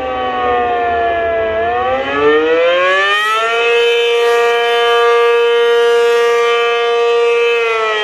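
ACA Penetrator-50 rotating tornado siren sounding the attack signal: its wail falls, climbs again from about a second and a half in, holds a steady high tone, and starts to fall again near the end.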